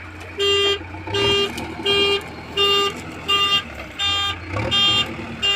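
Vehicle warning beeper sounding in a regular series of eight short beeps, about one every 0.7 s, over a low engine rumble.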